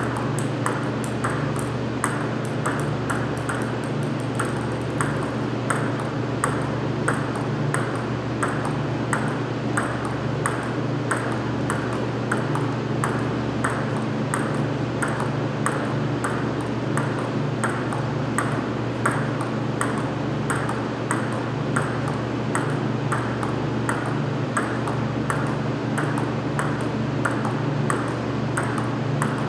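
Table tennis ball being struck and bouncing in a steady, fast rally, about three sharp clicks a second, over a steady low hum.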